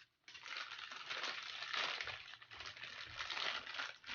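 Small plastic bag, holding toy hooks, crinkling as it is handled: a dense crackly rustle that starts after a moment of silence.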